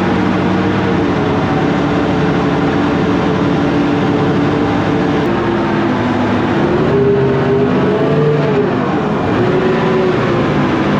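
Toyota 1UZ-FE V8 in a jet boat running under way. Its revs climb about two-thirds of the way in, drop back briefly and rise again near the end.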